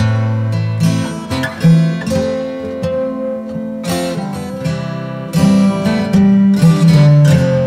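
Background music played on acoustic guitar: a run of plucked notes and chords with sharp attacks that ring out.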